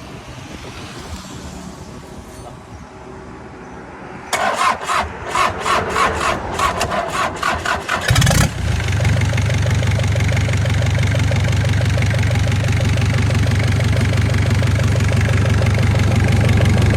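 Korean truck engine being started: the starter cranks it over in an even rhythm for about four seconds, the engine catches about eight seconds in with a brief surge, then settles into a steady idle.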